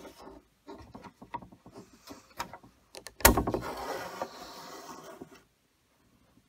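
Steel tape measure handled on a wooden board. There are scattered small clicks and knocks, then a sharp knock about three seconds in, followed by about two seconds of the tape blade rattling and scraping as it is drawn out along the board.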